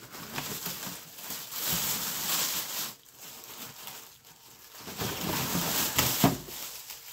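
Plastic bag crinkling and rustling as it is pulled off a mini-split indoor unit in its cardboard box, in two spells with a quieter pause between and a short knock near the end.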